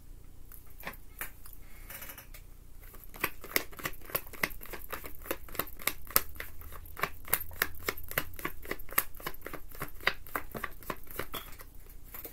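A deck of tarot cards shuffled by hand: a quick run of crisp card clicks, several a second, starting about three seconds in and thinning out near the end.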